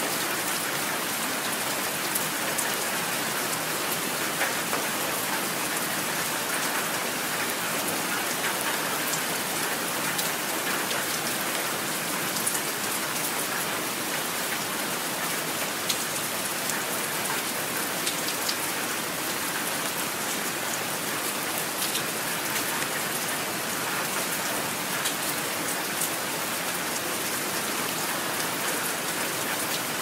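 Steady heavy rain: a dense, even hiss with many small sharp drop ticks scattered through it.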